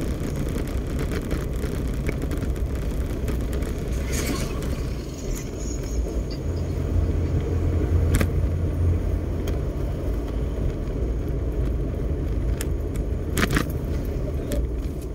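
Steady low road and engine rumble inside a moving car's cabin, with a few short clicks.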